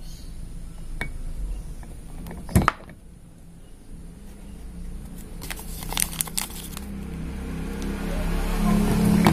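Small metal clutch parts clicking and clacking as they are handled on a bench, with plastic parts-bag crinkling; the sharpest clack comes about two and a half seconds in. In the last couple of seconds an engine hum rises in the background.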